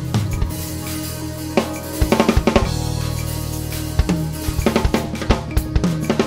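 Drum kit played with sticks, with kick, snare, hi-hat and cymbal hits, over a music track with held low notes. Quick runs of hits come about two seconds in and again through the last second and a half.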